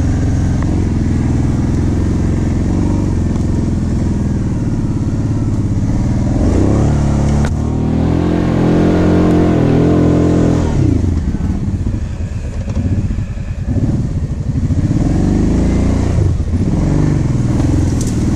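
Quad (ATV) engine running under way on a dirt trail, heard from the rider's seat. It revs up about six seconds in, holds, and eases off around eleven seconds, then picks up again near sixteen seconds.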